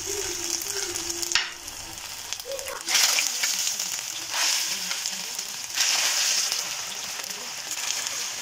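Raw-potato and semolina kebabs frying in hot oil in a pan: a steady hissing sizzle that steps up sharply in loudness about three seconds in.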